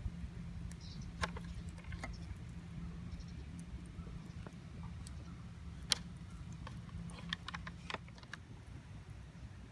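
Scattered light clicks and taps, about a dozen, the sharpest about six seconds in, over a low steady hum.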